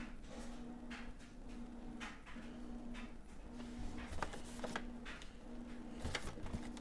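A cardboard product box being handled and turned over, with faint scraping and rustling about four seconds in and again near six seconds. Under it, a faint tone pulses on and off about once a second.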